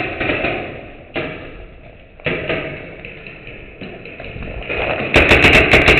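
Jolting thumps and rustle from a camera carried by a running player, then from about five seconds in a rapid string of sharp pops from paintball markers firing, the loudest part.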